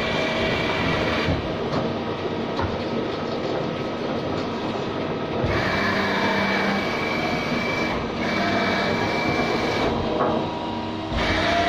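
Takisawa TC-4 CNC turning center running: a steady mechanical hum, with a high whine that cuts in and out several times.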